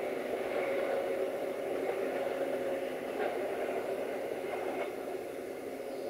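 Passenger train running away down the track: a steady rolling drone that fades slightly near the end as it recedes.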